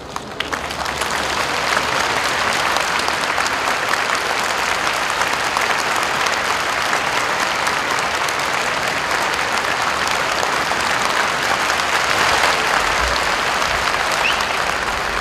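A large audience applauding in an arena, swelling over the first couple of seconds and then holding steady.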